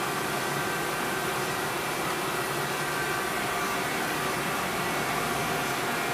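Hardinge Hauser S35-200 CNC jig grinder running: a steady hiss and hum with several faint, steady whining tones, holding an even level throughout.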